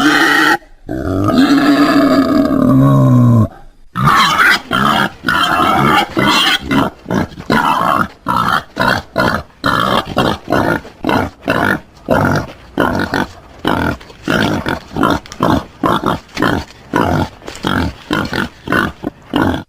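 Wild boar calling: a long, drawn-out pitched call of about three seconds, then a steady run of short grunts, about two a second.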